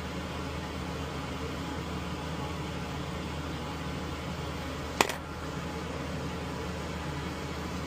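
Steady hum of a fan or similar small machine, with one sharp click about five seconds in.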